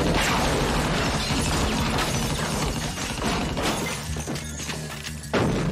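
Movie fight-scene crash: a sudden smash with shattering, then debris clattering as it settles, under film music. Another sudden crash comes near the end.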